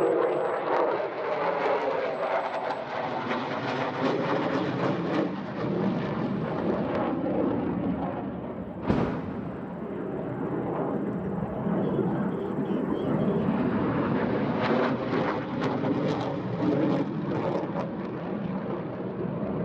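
F-16 Fighting Falcon jet passing overhead: a loud, steady rushing jet noise with drifting tones in it. A single sharp bang cuts through it about nine seconds in.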